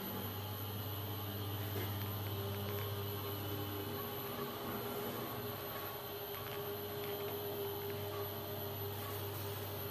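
Lift (elevator) running: a steady low hum that starts suddenly at the beginning, joined about two seconds in by a fainter, higher steady tone.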